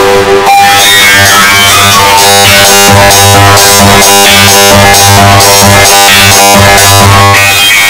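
Very loud electronic music with synthesizer and a steady beat, with a brief break about half a second in where one piece gives way to the next.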